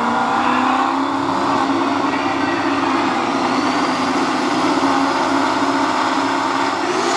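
Car engine running loudly at a steady speed, its pitch creeping slowly upward, then revving up sharply near the end.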